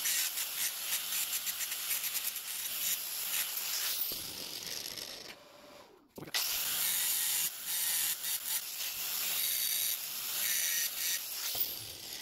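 Angle grinder grinding the edges of steel horseshoe pieces, a steady high-pitched grinding noise with a chattering edge, in two spells with a brief stop about halfway through. The edges are being ground down where the pieces will be welded, so the welds can penetrate.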